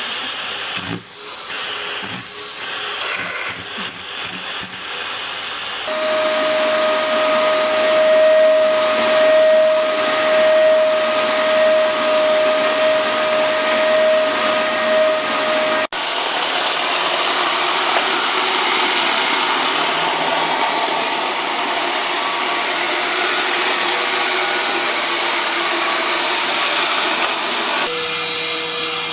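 Vacuum cleaners running: a steady motor whine over an airflow hiss. The pitch and character change abruptly three times, as one clip cuts to the next.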